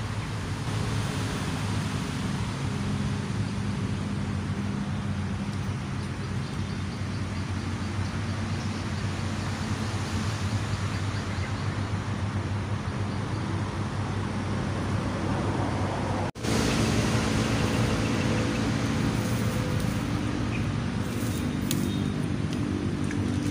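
A steady low droning hum over a background hiss, like a distant motor. It drops out for a moment about two-thirds of the way through and comes back slightly louder.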